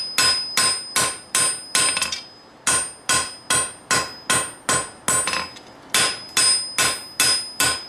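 Hand hammer striking steel on an anvil in steady runs of about two to three blows a second, each blow followed by a high ringing tone, with two short pauses.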